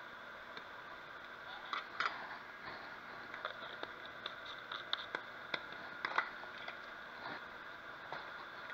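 Melted butter sizzling in a frying pan, a steady hiss with frequent sharp pops and crackles from about two seconds in.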